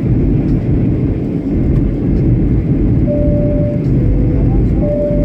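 Steady cabin rumble of a SpiceJet Boeing 737 jet airliner heard from a window seat over the wing: engine and airflow noise on the approach. From about three seconds in, a faint two-note tone alternates over the rumble.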